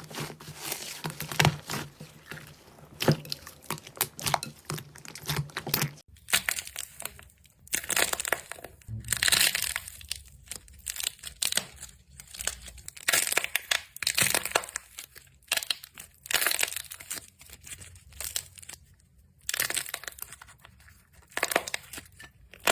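Hands working crunchy slime, giving crackling, crinkling pops. For about the first six seconds the pops are dense and sharp; after that they come in clusters roughly a second apart.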